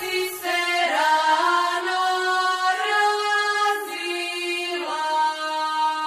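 Background music without a beat: long held, chant-like sung notes that slide in pitch between phrases.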